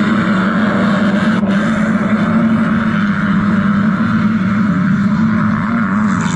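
Motorcycle engine running steadily at a high, constant pitch, wavering slightly near the end.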